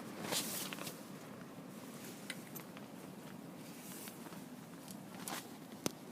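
Faint rustles and a few clicks over a steady low background noise, with one sharp click near the end; no bite alarm sounds.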